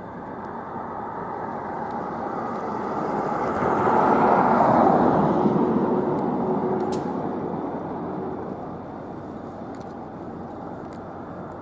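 A vehicle passing close by: a rush of engine and tyre noise that swells to a peak about four to five seconds in, then fades away.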